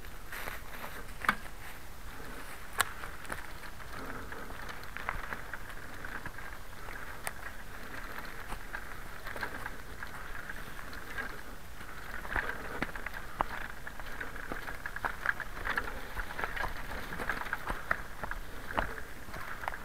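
Dry leaves and twigs crackling under the knobbly tyres of a KMX Cobra recumbent trike as it rolls over a leaf-covered woodland track, with scattered sharp clicks and snaps. Two louder clicks come within the first few seconds, and the crackling grows denser and louder in the second half.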